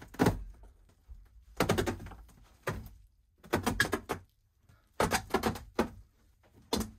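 Old carpet being pulled up off the floor of a truck camper's over-cab bed and rolled up: a string of short tearing and thumping noises in bunches about a second apart.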